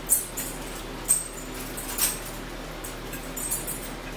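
Forks clinking against dinner plates while eating: a few sharp metallic clinks, the loudest about a second apart, over low room noise.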